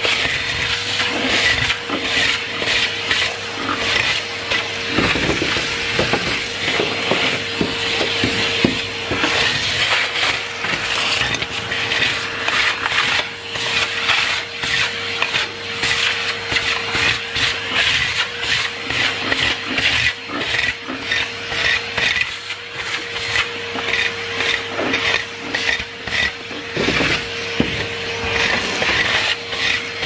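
Numatic Henry cylinder vacuum cleaner running with a steady motor whine, its wand nozzle sucking up grit and debris from concrete that crackles and rattles continuously up the hose.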